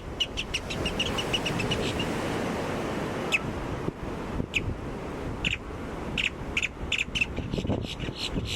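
Grackles calling: a fast run of short harsh notes for about the first two seconds, then single sharp calls and short bursts of calls, over a steady wash of surf and wind.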